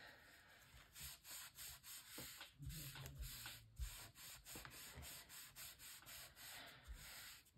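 Faint paper-on-paper rubbing: fingers smoothing freshly glued card pieces down onto textured paper in quick strokes, about two or three a second, with a few soft knocks against the cutting mat.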